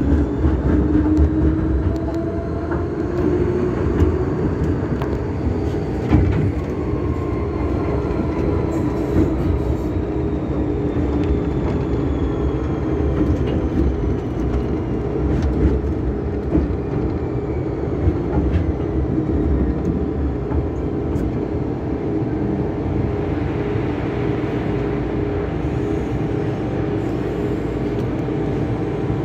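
MTR Kwun Tong Line M-Train heard from inside the car while running: a steady rumble of wheels on rail with a motor whine. The whine rises in pitch in the first couple of seconds, then a faint high whine slowly falls in pitch as the train slows into a station near the end.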